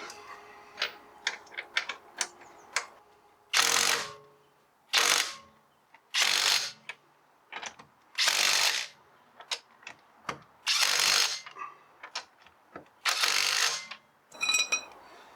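Ratchet wrench being worked on wheel bolts: about six short spells of rapid ratcheting, a second or two apart, with scattered single clicks and taps of metal in between.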